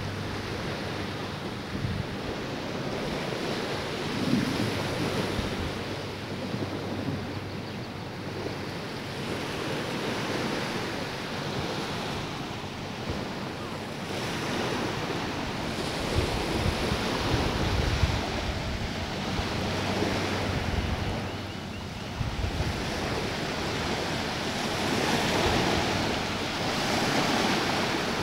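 Wind buffeting the camcorder microphone in uneven gusts over the steady wash of ocean surf.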